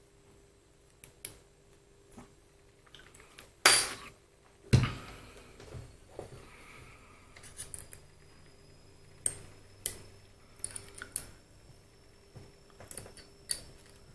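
Small steel lathe topslide parts and hand tools being handled on a bench: scattered light metallic clicks and clinks, with two louder knocks about four and five seconds in.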